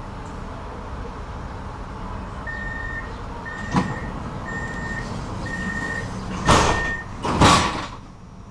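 Tram door-closing warning: five evenly spaced high beeps about a second apart, then the doors shutting with two loud bursts of noise, over a steady low rumble.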